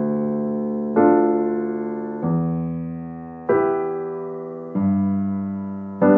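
Slow, calm piano or electric piano music: sustained chords struck about once every second and a bit, each fading away before the next.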